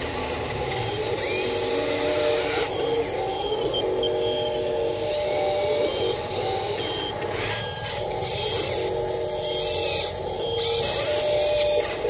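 Small electric motors and gears of a Huina radio-controlled model wheel loader whining in stretches as the arm lifts and the bucket tips and lowers, with gravel and soil scraping and spilling from the bucket.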